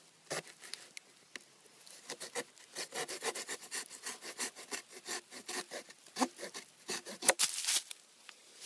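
The saw blade of a Victorinox Farmer Swiss Army knife cutting through a thick piece of wood in quick, short rasping strokes. The loudest strokes come a little over seven seconds in.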